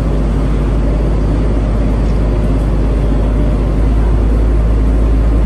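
Steady low rumble of a sightseeing ferry under way, heard from aboard, growing a little louder about four seconds in.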